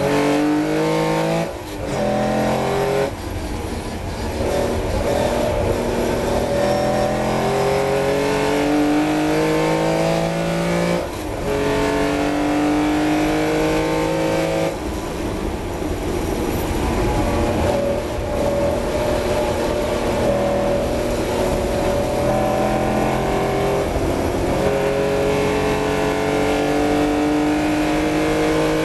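Austin-Healey 3000's straight-six engine heard on board under full acceleration. The revs climb and then drop with an upshift about a second and a half in, at about three seconds and at about eleven seconds, then run high and rise slowly down the straight.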